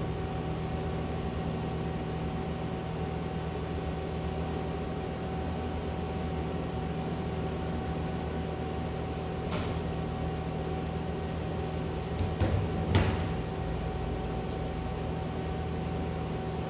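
Steady electrical hum with a few fixed tones from the Fanuc M20iA industrial robot and its R-30iB controller as the arm moves. A sharp click comes about halfway through, and a short cluster of knocks a few seconds later.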